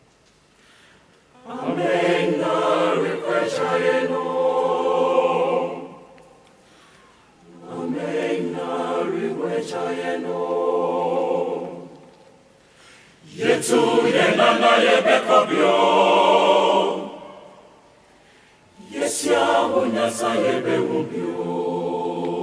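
A choir singing without accompaniment, in four phrases a few seconds long with short pauses between them.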